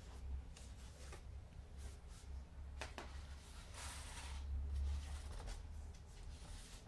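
Faint rustling and scattered light clicks over a low steady rumble, with a longer rustle a little before halfway through.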